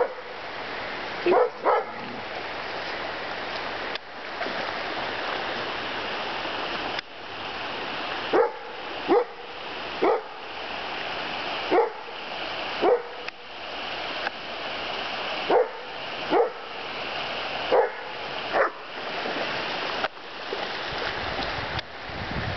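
A dog barking in short, excited yips, mostly in pairs, at salmon running in the river. A pause of several seconds falls after the first pair. Shallow river water runs steadily underneath.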